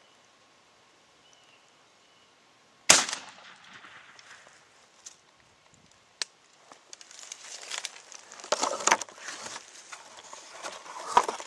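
A single 12-gauge-style shotgun blast about three seconds in, cracking out of near silence and trailing off with a short echo. A sharp click follows a few seconds later, then irregular rustling of grass and clothing as the shooter moves.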